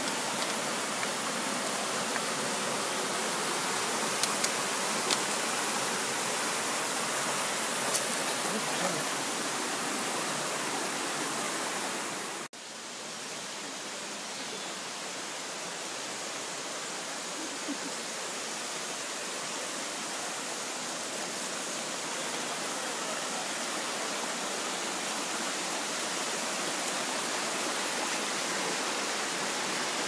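Forest stream running over rocks and small cascades: a steady rushing of water. It cuts out abruptly about twelve seconds in, then comes back a little quieter.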